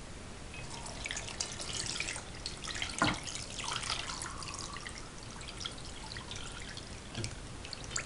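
Brine poured from a saucepan onto fish in a stainless-steel bowl: splashing and trickling, with a single knock about three seconds in, thinning to scattered drips in the second half.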